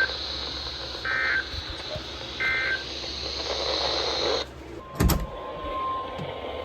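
NOAA Weather Radio SAME/EAS end-of-message data bursts: two short bursts of rapid digital warbling tones about a second and a half apart over receiver hiss, following the tail of a first, marking the end of the alert test. About four and a half seconds in the hiss cuts off, then a sharp click and a steady tone lasting about two seconds.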